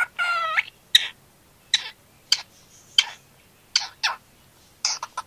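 Pet cockatiel calling: one short call with several stacked tones, then a string of brief, sharp chirps spaced about half a second to a second apart.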